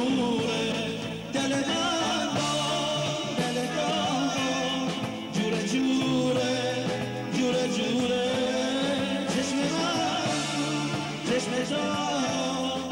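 Dance music with a singer, the voice carrying the melody over a band accompaniment.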